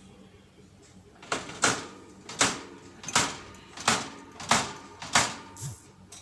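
A small pet bird drumming: about eight sharp knocks of its beak against a hard surface, in a rough beat of one every 0.7 seconds or so, starting about a second in.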